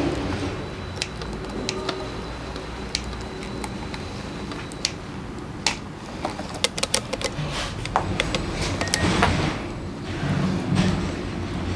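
Scattered sharp clicks and clinks of hand tools and small parts being handled on a motorcycle, over a steady low hum, with a rushing noise swelling about nine seconds in.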